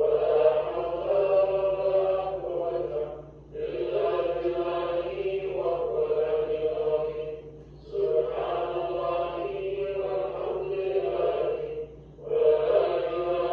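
A congregation chanting dhikr together, reciting the names of God in unison. The chant comes in repeated phrases of about four seconds, with a brief pause for breath between each.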